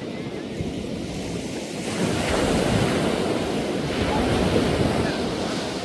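Sea waves washing onto the shore: a steady surf hiss that swells into a louder wash about two seconds in and eases near the end, with wind on the microphone.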